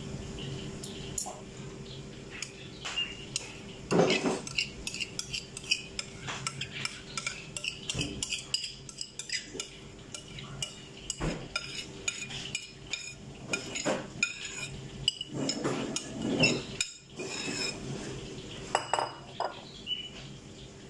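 A metal spoon clinking and scraping against a ceramic bowl and a glass serving bowl as yogurt dressing is scooped out and spread over a salad, in many short irregular clicks with a few louder knocks, over a faint steady hum.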